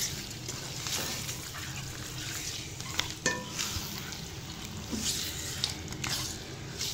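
Black spatula stirring raw chicken pieces through frying masala in an aluminium kadhai: a steady sizzle with scrapes and scattered clicks of the spatula against the pan, two sharper knocks about three seconds in.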